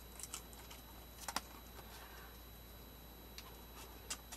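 Scattered light clicks and taps from stiff painted-paper tags and cards being handled and shuffled in the hands, the loudest pair about a second and a half in.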